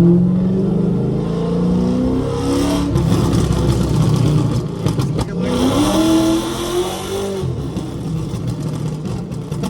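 The Dodge Charger R/T's 5.7-litre HEMI V8 exhaust is heard from inside the car. It falls in pitch as the throttle closes, then revs up again and drops back. A few sharp cracks come from its burble (pop-and-crackle) tune.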